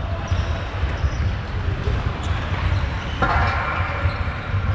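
Indoor ice rink ambience: a steady low rumble, with a sudden scraping hiss about three seconds in that lasts about a second and a half.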